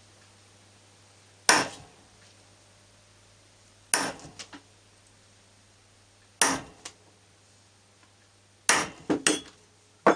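A hammer striking a steel hole punch to cut a paper gasket: sharp metallic knocks about every two and a half seconds, three coming closer together near the end.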